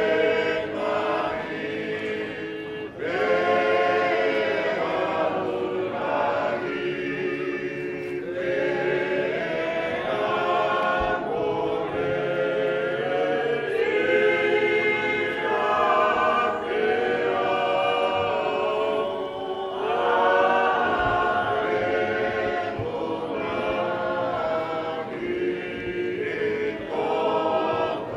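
A group of voices singing a hymn together in several-part harmony, in long phrases with short breaks for breath.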